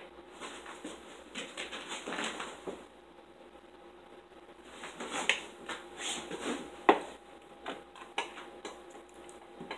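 Scattered small clinks and taps of a fork and plates at a dinner table, with one sharper knock about seven seconds in, over a faint steady hum.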